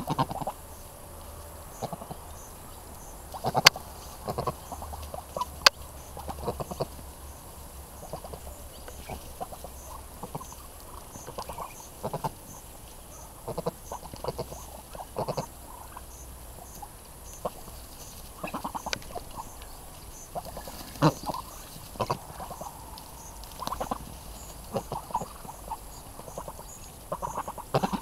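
A flock of Muscovy ducks feeding at close range: scattered short, soft calls and pecking noises at irregular intervals, with two sharp clicks a little under 4 seconds and about 6 seconds in.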